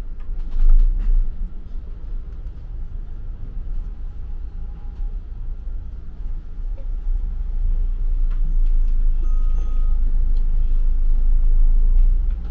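Double-decker bus heard from inside the passenger deck: a steady low engine rumble with road noise, a knock about a second in, and the rumble growing louder over the last few seconds as the bus gathers speed.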